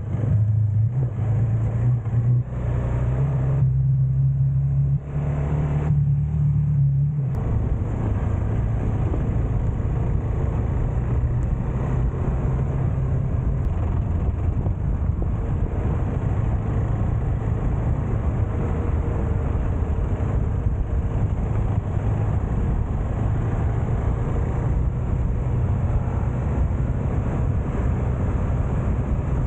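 Motorcycle engine running while being ridden, its steady low note changing in steps during the first few seconds. After about seven seconds it settles into a steady, dense rush of engine and wind noise at cruising speed.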